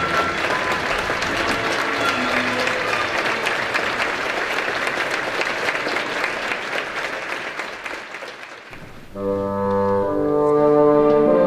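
Concert audience applauding, a dense clatter of clapping that fades away about eight seconds in. About nine seconds in, an orchestra starts playing sustained chords.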